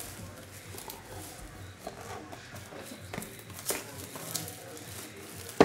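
Clear plastic wrap crinkling and crackling in irregular little ticks as it is peeled by hand off a trading-card box, with one sharp knock at the very end.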